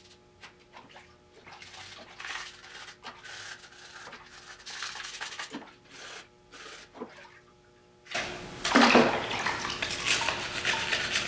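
Tail-light lenses being scrubbed by hand in a bucket of water: irregular rubbing and scraping with light splashing, turning much louder and wetter about eight seconds in.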